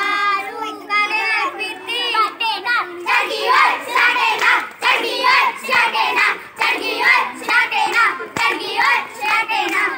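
A group of girls singing a Punjabi folk song together, with hand claps. The singing grows fuller and louder about three seconds in.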